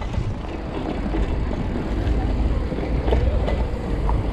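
Wind rumbling on the microphone of a moving mountain bike, with road noise and a few short knocks as the tyres roll over rail tracks set into the street.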